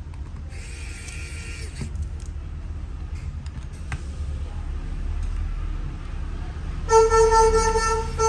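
A vehicle horn sounds once near the end, a single held note of about a second and a half, over a steady low hum.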